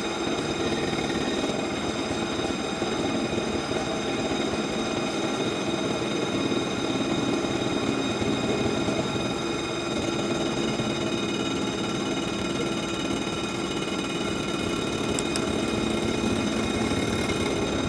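CNC vertical milling machine running steadily, its spindle giving a high steady whine over the hum and noise of the cut.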